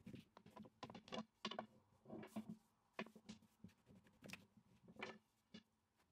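Faint, irregular light taps and clicks of a long, thin wooden rolling pin (oklava) as it rolls yufka dough against a hard countertop.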